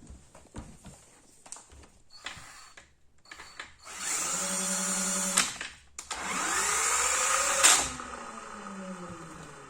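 A few handling clicks, then a power drill run in two bursts. The first runs at a steady speed for about a second and a half; the second speeds up, is released and winds down with a falling whine.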